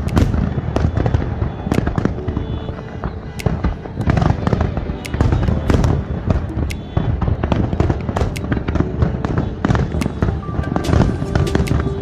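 Fireworks bursting in rapid, irregular succession, dense bangs and crackles, with music playing underneath.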